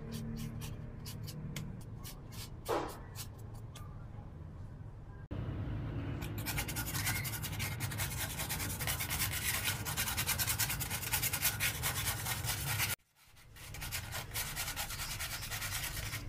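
Quick repeated rubbing strokes on a Styrofoam piece being shaped by hand, several strokes a second, with a short squeak about three seconds in.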